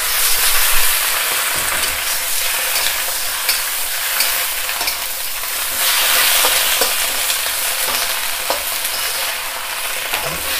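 Pak choi frying in a wok over high heat with water just added: a loud, steady sizzle, with a metal spatula scraping and clicking against the wok many times as the greens are tossed.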